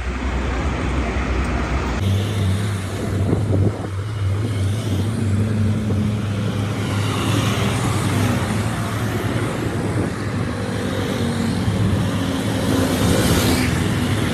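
Motor vehicle engine running steadily with a low hum, amid road traffic noise. The sound changes abruptly about two seconds in.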